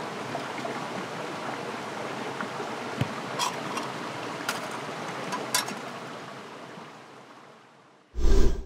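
Stream water running steadily, with a few light clicks and taps, fading out near the end. Just before the end, a short, loud burst of noise cuts in.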